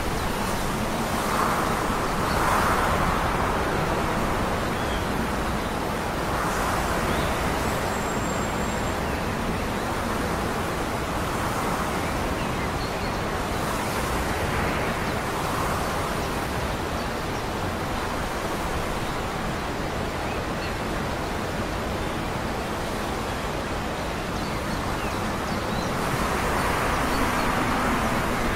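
Steady rushing outdoor noise that swells and eases every few seconds, loudest about two seconds in and again near the end.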